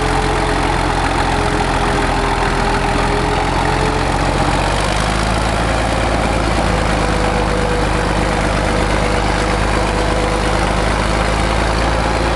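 International Harvester TD-24 crawler dozer's diesel engine running steadily under load as the blade pushes snow. The engine note changes about four and a half seconds in.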